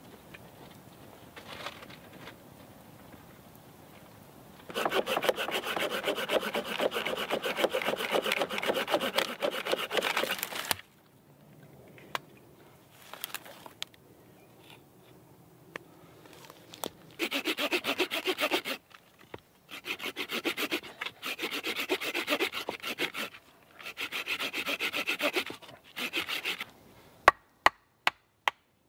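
Hand saw cutting through a hardwood branch, taken for the ash used to make a new mallet, in rapid rasping strokes: one long bout of about six seconds, then after a pause several shorter bouts. A few sharp knocks near the end.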